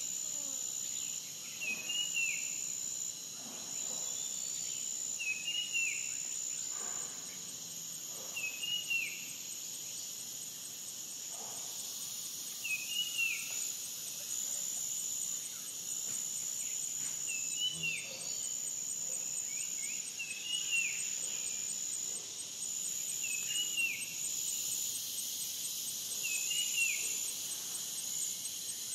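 Forest ambience of insects trilling steadily at a high pitch, with a bird repeating one short call about every two seconds.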